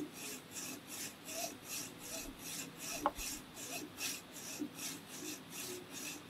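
Hand hacksaw cutting back and forth through a metal bar in its parting groove, about three rasping strokes a second, with one sharp click about three seconds in.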